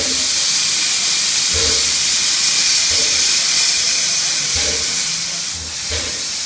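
Climax geared steam locomotive No. 1694 venting steam from its cylinder drain cocks in a loud, steady hiss. A handful of irregular low thumps sound through the hiss.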